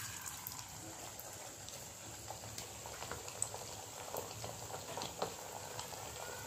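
Hot oil sizzling and bubbling in a kadai as potato-semolina fingers deep-fry, with many small scattered crackles.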